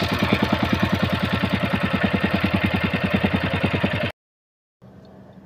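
Small fishing boat's engine running with rapid, even pulsing, loud and close. About four seconds in it cuts off abruptly; after a brief silence a faint steady low hum follows.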